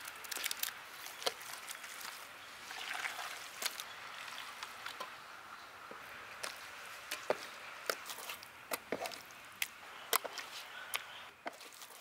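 Hands squishing raw fish pieces through a wet spice marinade in a stainless steel bowl, with many scattered light clicks and taps.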